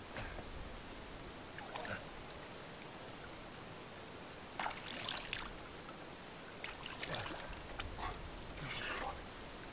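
Faint light splashes of shallow river water, four short ones a second or two apart, over a steady soft hiss.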